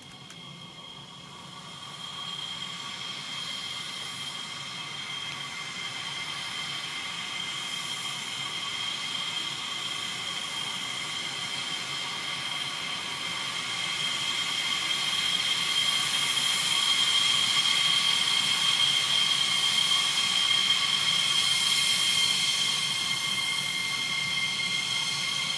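F-15E Strike Eagle's twin turbofan engines at taxi power: a steady high-pitched whine over a rushing hiss, growing louder as the jet taxis closer.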